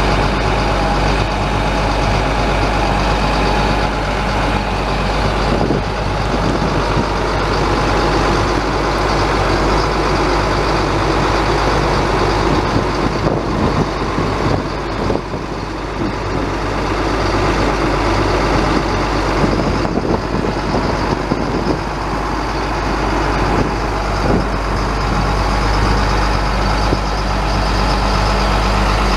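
Caterpillar 3126 inline-six turbo diesel of a Chevrolet C7500 bucket truck running steadily, with a thin steady whine above the engine note. It goes rougher and less even for several seconds in the middle.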